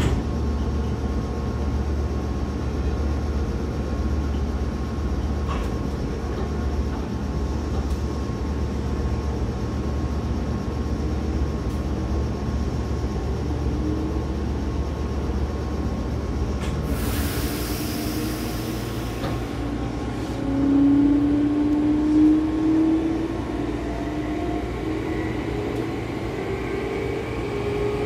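Meitetsu 5000 series electric train standing with a steady low hum. About 17 seconds in comes a loud hiss of released air lasting a few seconds. Then the traction motors start up, their whine rising in pitch as the train pulls away.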